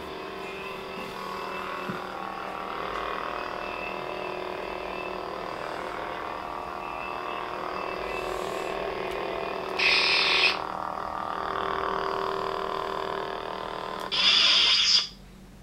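Two electronic toy lightsabers, an Ultra Saber and a Hasbro FFX, humming steadily from their speakers while lit, a layered steady hum. About ten seconds in, and again near the end, a louder hissing burst cuts in for under a second, and the sound drops away just before the end.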